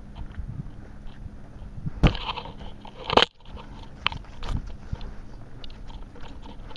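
Close crackling and crunching noise at a camera strapped to a dog's harness, with two sharp knocks, about two and three seconds in.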